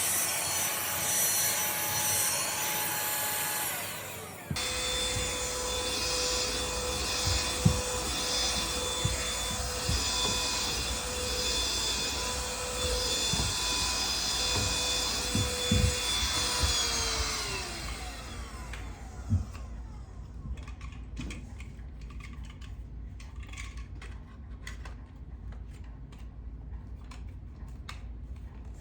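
Handheld cordless vacuum running with a steady whine, with a few knocks along the way. About seventeen seconds in, the motor is switched off and its whine falls in pitch as it spins down, leaving light clicks and handling sounds.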